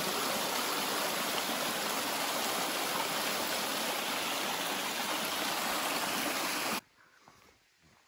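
Shallow creek water flowing over a sloping rock ledge in a small cascade: a steady, even rush of water that cuts off suddenly near the end.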